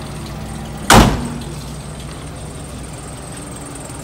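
A Suzuki Katana's door slams shut once, loudly, about a second in, over the steady idle of its engine.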